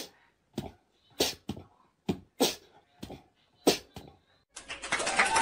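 A corgi giving a run of short, separate barks, about eight over four seconds. Music starts near the end.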